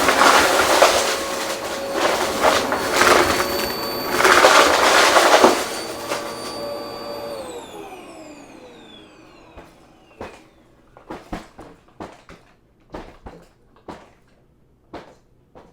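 Vacuum cleaner running and crunching through debris with sharp crackles. About seven seconds in it is switched off, and its motor whine falls in pitch as it spins down. A scatter of sharp clicks and taps follows.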